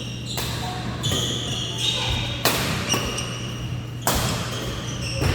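Badminton rally: four sharp racket strikes on a shuttlecock, about one and a half seconds apart, with short high shoe squeaks on the court floor between them.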